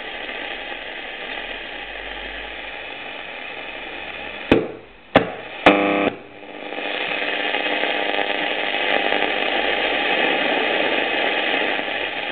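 FEDHA 63 tube radio hissing with static from its loudspeaker. About four and a half seconds in come three sharp clicks half a second apart as its controls are worked, the hiss cutting out between them and a short tone after the third. Then the static comes back and slowly grows louder.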